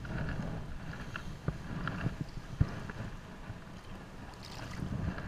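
Wind buffeting the microphone in a steady low rumble, with water lapping and a few short knocks and splashes as a sea bass is lowered by hand into shallow water and released.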